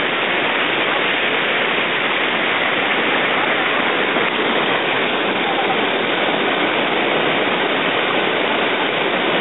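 River rapids rushing over and around rocks: a steady, loud rush of white water.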